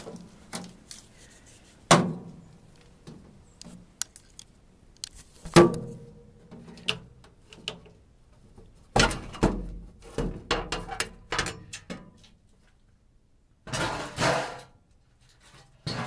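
Sheet-metal furnace access panel being taken off and handled: a series of knocks and thunks, with two sharp ones about two and five and a half seconds in, the second ringing briefly like struck metal, then a few seconds of clattering and a short scrape near the end.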